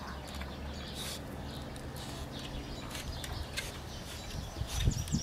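A raccoon climbing through a corrugated plastic tube, its claws making scattered light clicks and scratches on the plastic, with a few louder low thuds near the end.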